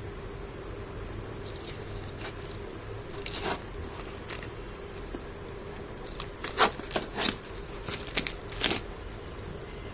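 Courier packaging of a mail-order phone being opened by hand: irregular rasping rips and scrapes, a few at first, then a loud cluster of sharp ones in the second half.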